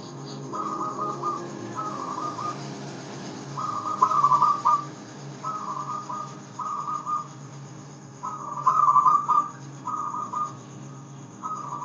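Zebra dove (perkutut) singing: a string of short, rapid rippling coos, about eight phrases, mostly in pairs with brief gaps between them.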